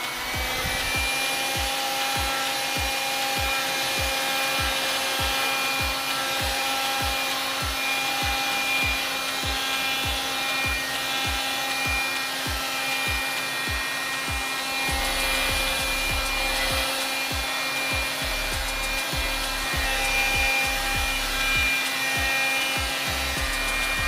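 Kitfort KT-529-2 cordless handheld vacuum running steadily, its motor whine holding one pitch over the rush of air, while its brush nozzle is rubbed across a laptop keyboard with irregular soft knocks.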